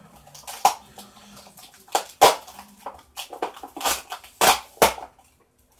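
Small plastic containers handled by hand: a run of clicks, taps and rustles of plastic canisters and a plastic box, with the sharpest knocks about two seconds in and twice near the end.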